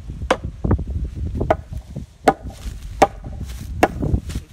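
Repeated hammer blows on the wooden corner post and brace, struck at a steady pace of a little more than one a second, each hit with a short ring.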